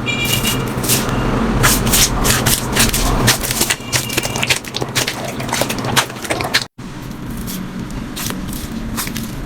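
Slime being squeezed and pressed by hand, giving a dense run of small sticky crackling pops and clicks, broken by a brief gap about two-thirds through.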